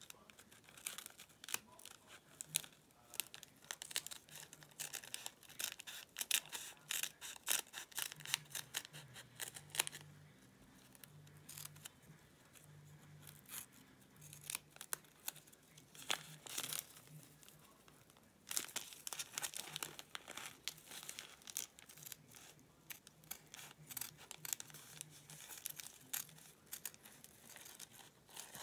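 Small spring-loaded snips cutting fabric backed with Bondaweb paper: quick runs of crisp snips mixed with crinkling of the paper backing. There is a quieter stretch of several seconds midway before the snipping starts again.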